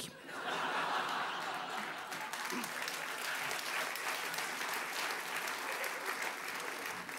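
Audience applauding a joke, many hands clapping steadily.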